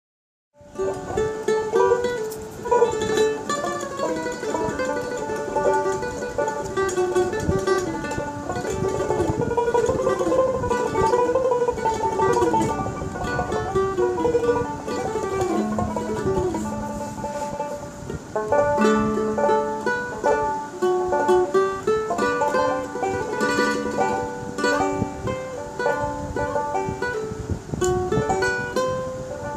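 Dotara and ukulele playing the instrumental opening of a Bengali baul folk song: a plucked, gliding melody that starts about half a second in.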